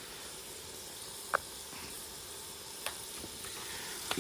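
Crushed garlic and ginger frying with onions in a pan: a steady sizzle, with a few light sharp clicks.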